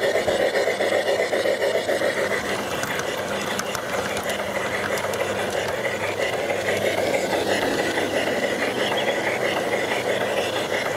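LGB G-scale model steam locomotive and its train running along garden-railway track: a steady whirring of the small electric motor and gears with the rattle of wheels on the rails, and a faint high whine held steady throughout.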